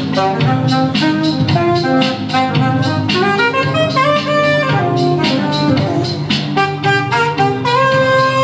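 Saxophone playing a melody with held notes over a backing track that has a steady beat and a bass line.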